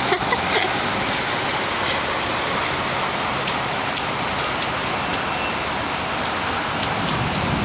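Heavy rain pouring down during a thunderstorm, a steady, even hiss.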